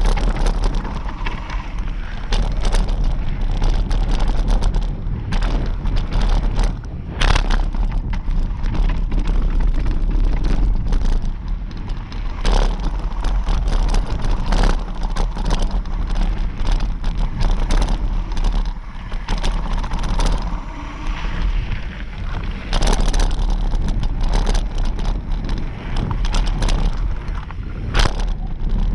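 Mountain bike descending a dirt trail, heard from a camera riding on it: a steady low rumble of wind and tyres on dirt, broken by frequent sharp knocks and rattles as the bike hits bumps and roots.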